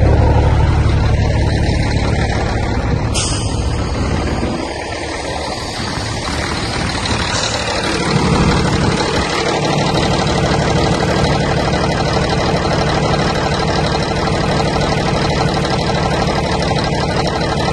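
Scania conventional-cab truck's diesel engine idling steadily while it recharges the batteries. It is deeper and heavier at the exhaust pipe at first, with a single click about three seconds in.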